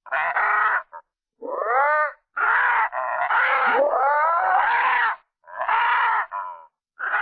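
Slowed-down chattering calls of kookaburras, monkeys and parrots, played in about six separate bursts with sliding, rising and falling pitch, each cut off sharply into silence; the last ends just after seven seconds.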